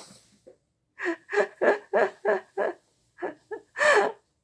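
A person laughing: a quick run of short 'ha-ha-ha' bursts, about three a second, then a few more after a brief pause.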